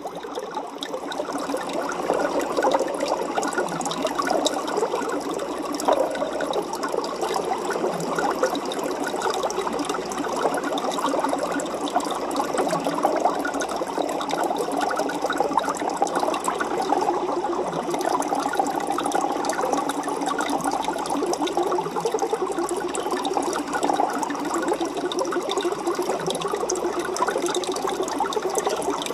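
Aquarium water running steadily, with a dense, busy crackle of small splashes and bubbles.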